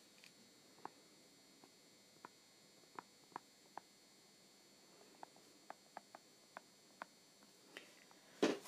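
Faint, irregular light taps of a stylus on an iPad's glass screen during handwriting, about fifteen in all, over a faint steady electrical hum.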